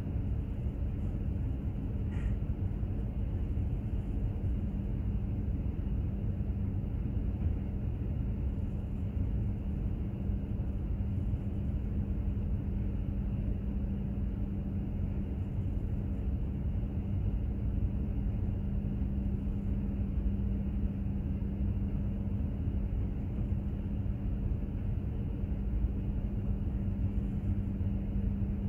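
Steady low rumble of a container ship under way, its machinery giving a constant, unchanging hum.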